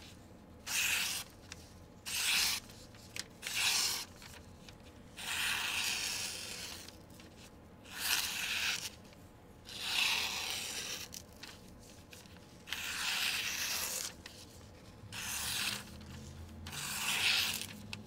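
Folding pocket-knife blade slicing through thin magazine paper in about ten separate strokes, each a short papery hiss, some quick and some drawn out over a second or more. The cuts run clean, the sign of a nice sharp factory edge.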